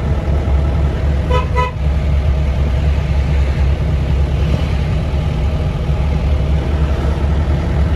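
Mahindra Commander jeep on the move, with a steady low engine and road rumble. Two short horn toots come about a second and a half in.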